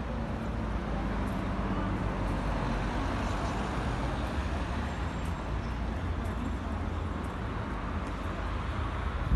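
Road traffic noise: a steady low rumble of passing vehicles that swells slightly in the middle.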